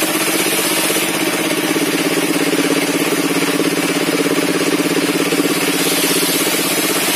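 Stationary engine driving a sawmill's circular saw table, running steadily with a rapid, even pulse.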